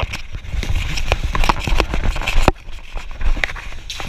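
Footsteps thudding on wooden planks with many irregular clicks and knocks of gear and handling, and a sharp knock about two and a half seconds in.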